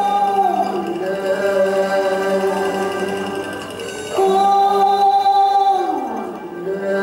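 A woman singing into a microphone over backing music, amplified in a hall: long held notes that slide down at the end of each phrase, with a new phrase starting about four seconds in.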